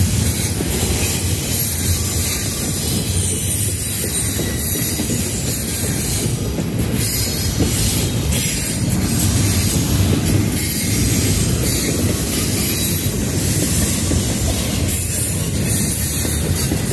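Container cars of a Canadian National intermodal train rolling past at a steady pace: a continuous rumble of wheels on the rails with a high hiss over it.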